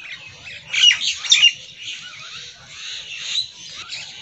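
Birds chirping and squawking, with a cluster of loud chirps about a second in and softer chirps after.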